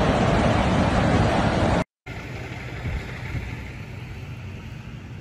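Tornado wind blowing hard on a phone microphone, a loud even rush that cuts off abruptly just under two seconds in. After a brief silence comes a much quieter low rumble of wind and a car driving through the storm.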